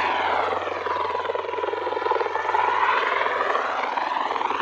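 MV-22 Osprey tiltrotor in hover mode, its two proprotors and turboshaft engines running loud and steady as it comes down toward the deck. Under it lie a constant low hum and a fast blade beat, and the sound swirls and phases as the aircraft nears.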